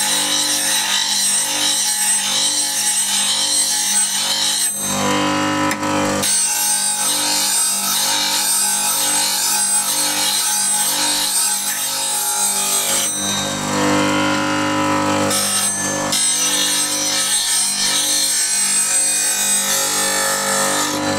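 Record Power RSBG8 bench grinder motor humming steadily while a steel bowl gouge is ground freehand against the wheel, giving a loud grinding hiss as the wing is rolled across it. The hiss drops out twice, about five seconds in and again around thirteen seconds, when the tool comes off the wheel, leaving only the motor hum. This is the roughing stage, taking flat spots off the bevel.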